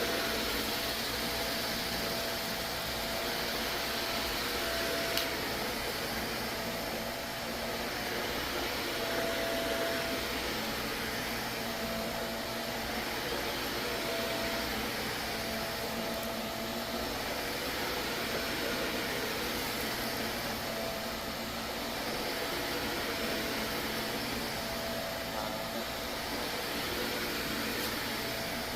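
Vacuum cleaner running steadily, a dense motor-and-airflow noise with a steady whine that swells and fades. There is a single light click about five seconds in.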